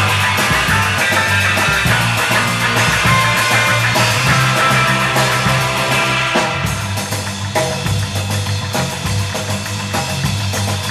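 Up-tempo rock music with drum kit and guitar, playing continuously; it eases off slightly a little past halfway.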